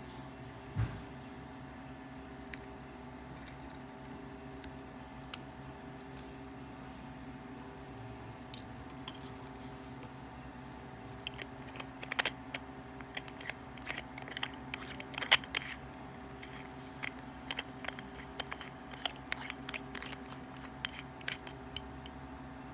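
Light, irregular metallic clicks and taps from handling a pocket watch, over a steady low room hum, with one dull thump about a second in. The clicks come thickest and loudest in the second half.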